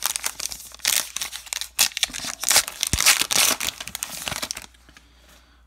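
A baseball card pack wrapper being torn open and crinkled by hand: a dense run of crinkling and tearing that stops about a second before the end.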